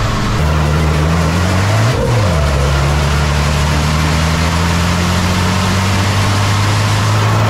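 Racing truck's diesel engine pulling hard under load, its pitch climbing slowly. About two seconds in it drops and recovers sharply at a gear change, then climbs steadily again.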